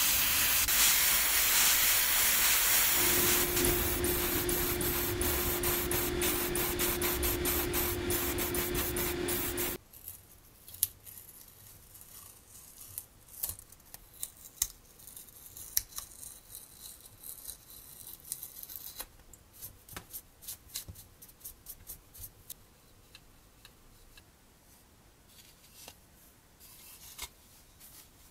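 Airbrush spraying paint with a loud steady hiss, a steady hum joining a few seconds in. The hiss cuts off suddenly about ten seconds in. What follows is much quieter: small clicks and rustles of metal tweezers peeling masking tape off a plastic model seat, then the small parts being handled.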